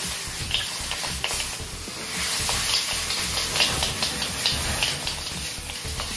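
Marinated beef short ribs sizzling and crackling as they sear in a carbon steel wok over a high-flame gas burner, the wok being tossed, with scattered pops throughout.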